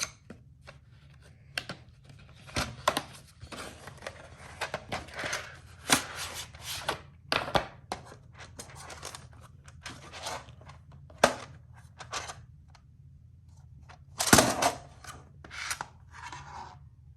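Irregular clicks, taps and rustling of mechanical keyboard parts being handled and fitted together during assembly, with a louder cluster of scraping and clicking about 14 seconds in.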